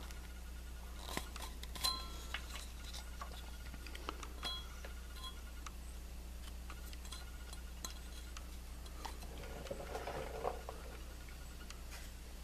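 Faint handling noises as a rubber timing belt is worked onto a cam sprocket by hand: scattered light clicks and a few small ringing clinks in the first half, and a soft rustle near the end, over a steady low hum.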